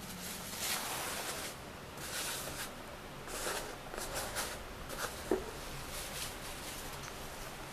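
A cat in a plastic cone collar rolling and playing on carpet with a homemade jellyfish toy: several short spells of rustling and scraping, with a sharper tap about five seconds in.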